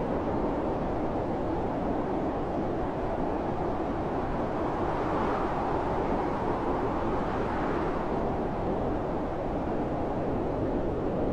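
Blizzard wind blowing hard and steadily, a deep rushing roar that swells a little now and then.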